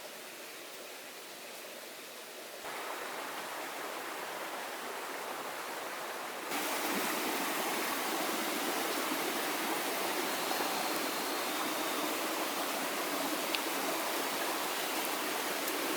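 Steady rush of water, an even hiss with no distinct strokes, that gets suddenly louder twice, about three seconds in and again about six and a half seconds in.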